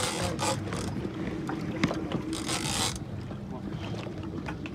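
Boat engine running steadily at idle with a low hum, overlaid by two short bursts of hiss, one at the start and one about two and a half seconds in, and a few sharp clicks.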